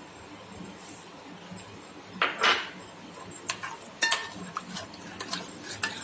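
A spoon stirring and scraping in a bowl of milk-and-biscuit ice cream mix: one short scrape about two seconds in, then a run of light, irregular clinks of the spoon against the bowl.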